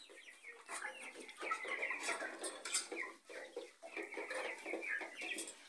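Chickens clucking quietly, many short calls overlapping from several birds.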